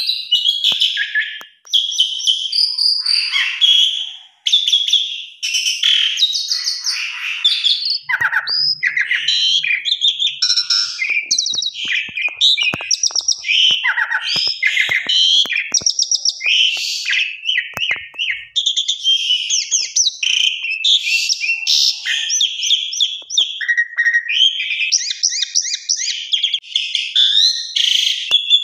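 Javan pied starling (jalak suren) singing a long, varied song of rapid chattering phrases and sharp clicks, packed with mimicked calls, with brief pauses only near the start.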